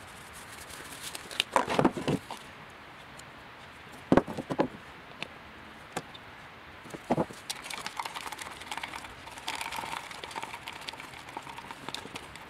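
Epoxy being measured and mixed by hand: scattered sharp clicks and knocks as the hardener can's pump and a plastic mixing cup are worked on a wooden bench, then a stir stick scraping round inside the plastic cup over the last few seconds.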